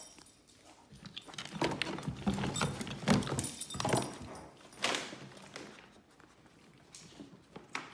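A dog making irregular clicking and scuffling noises, busiest between about one and five seconds in.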